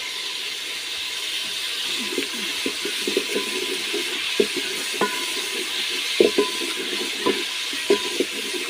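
Onions sizzling and bubbling in a little water, without oil, in an aluminium pot over a wood fire, with a steady hiss. From about two seconds in, a wooden spoon stirs and scrapes the pot, giving many short knocks, some with a brief metallic ring.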